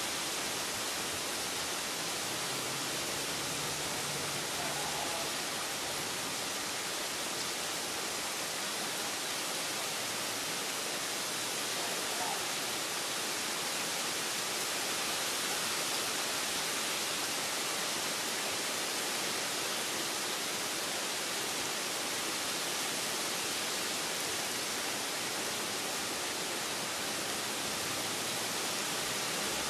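Steady rain falling, a constant even hiss that does not swell or fade.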